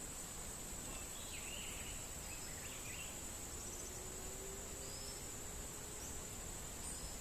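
Outdoor ambience dominated by a steady, high-pitched insect drone, with a few faint chirps in the first half.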